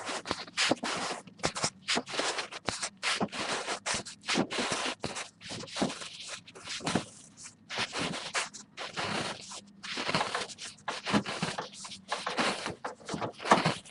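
Printer running a print job: a rapid, uneven series of scraping passes, two or three a second.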